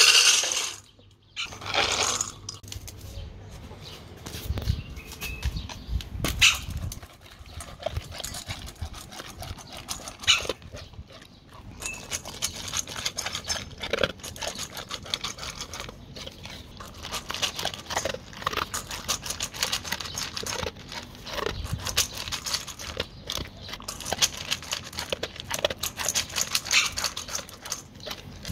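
Dry kibble poured into a stainless steel bowl, rattling in at the start and again briefly about two seconds in. Then a dog eats the kibble from the metal bowl, with crunching and clinking that become dense and continuous about halfway through.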